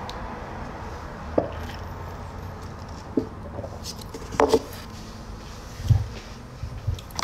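Steady low background noise with a few short, soft knocks and rustles of handling, the loudest a pair about four and a half seconds in.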